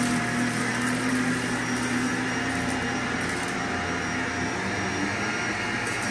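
Vacuum cleaner running steadily on carpet: an even rush of air over a steady motor hum.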